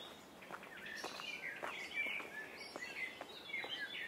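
Songbirds singing, a run of quick twittering chirps that grows busier about a second in, over footsteps at about two steps a second.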